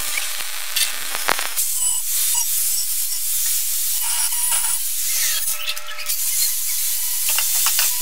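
MIG welding on a steel-tube frame, crackling and spitting with sharp pops, then, from about a second and a half in, an angle grinder grinding down the welds with a steady hiss and a faint whine.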